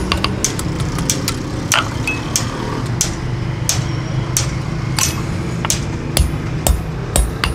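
Hand hammer tapping a steel cleaver blade on an anvil, sharp metallic strikes about twice a second at uneven spacing, over a steady low hum.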